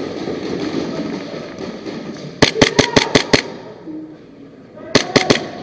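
Airsoft guns firing: a rapid string of about six sharp shots, then a second string of about four shots roughly a second and a half later.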